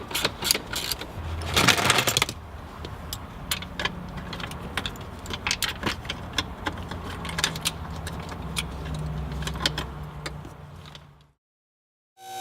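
Ratchet wrench clicking in quick runs while backing out the 10 mm nuts that hold the shifter box up, over a low hum, then fading out to silence near the end.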